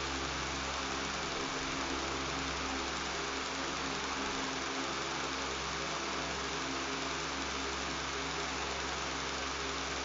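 Electric fan running steadily: an even airy hiss with a low, constant motor hum and buzz beneath it.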